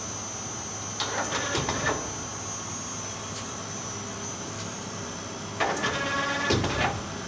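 Tool turret of a Clausing Metosa CNC lathe indexing twice, about a second in and again near the end: each time a short pitched motor whine with clicks as the turret turns and locks. A steady machine hum runs underneath.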